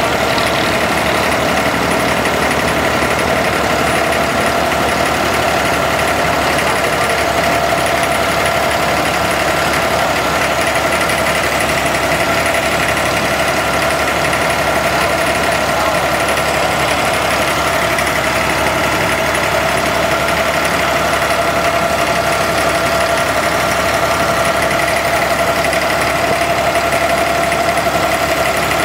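Inboard diesel engine of a wooden abra water taxi running steadily under way, a constant drone holding the same pitch throughout.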